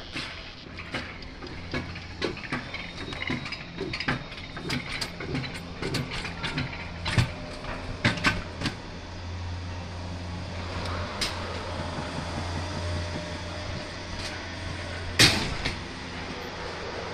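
Alpine coaster sled running on its steel-tube track, rattling and clacking over the rails, then settling into a steadier rumble, with one loud clunk about fifteen seconds in.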